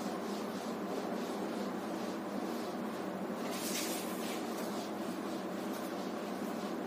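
Whiteboard duster rubbing and wiping across a whiteboard in strokes, the strongest stroke about halfway through, over a steady background hum.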